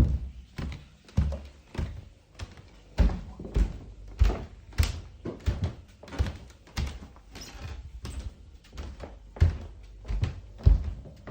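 Footsteps walking at a steady pace, about two heavy, thudding steps a second.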